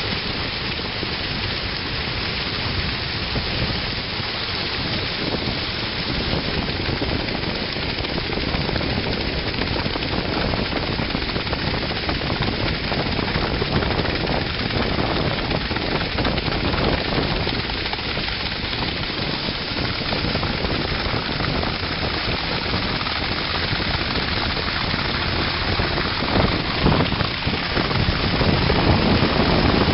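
Bow wave and spray rushing along the fibreglass hull of a MacGregor 26M motoring at speed, heard close to the waterline as a steady, dense hiss. It gets a little louder near the end.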